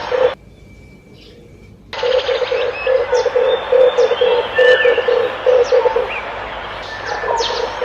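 Red turtle dove cooing in a fast run of low, rough pulses that begins about two seconds in and breaks off briefly near the end. Short high chirps of other small birds sound over it, and a brief loud burst comes at the very start.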